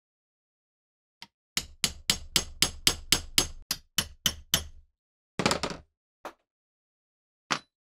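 A hammer tapping a steel pin punch to drive a pin out of an antique pruning saw's wooden handle: about twelve quick taps at roughly four a second, then a brief clatter and one more tap near the end.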